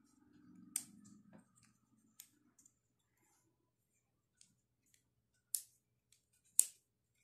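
Metal clicks of a folding multi-tool as its hex keys and socket pieces are handled and folded into the body. A few sharp separate clicks with smaller ticks between; the loudest comes near the end.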